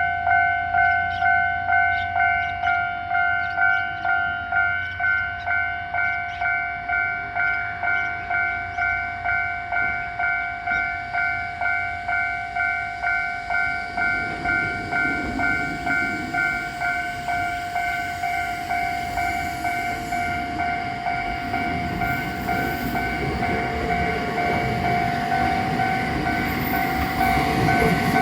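Japanese level-crossing warning bell ringing steadily in even dings, a little under two a second. From about halfway a Choshi Electric Railway train's running noise comes in and grows louder under the bell.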